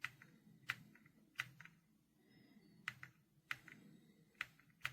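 Separate key presses on an RK Royal Kludge R75 mechanical keyboard with silver switches: about seven faint, unevenly spaced clacks rather than continuous typing.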